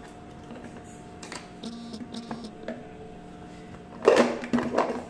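Plastic pull-cord vegetable chopper being loaded with carrot chunks and handled on a kitchen counter. Light clicks and knocks come first, then a louder burst of rattling and knocking about four seconds in, over a faint steady hum.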